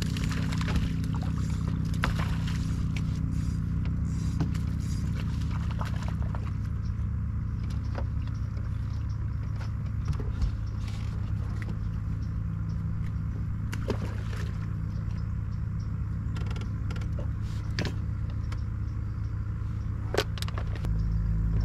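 Boat motor running at a steady speed, a low even hum with a few small clicks and knocks over it; near the end the low hum steps up and gets louder.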